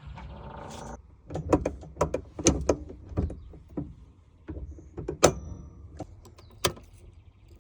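About a second of quick mechanical rattling, then a string of sharp clicks and clunks from a Volkswagen's door and latch mechanisms, irregularly spaced. One clunk about five seconds in is followed by a brief high ring.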